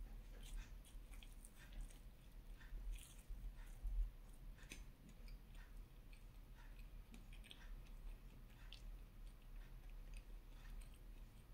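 Close-miked chewing of fried banana: soft mouth sounds with scattered small clicks, and one louder click about four seconds in.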